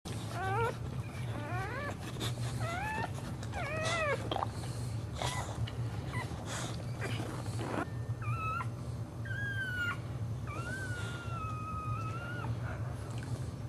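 A boxer bitch in labour whining and whimpering: a run of short cries that rise and fall in quick succession, then a few longer drawn-out whines, the last held for about two seconds near the end. She is straining to deliver a puppy. A steady low hum runs underneath.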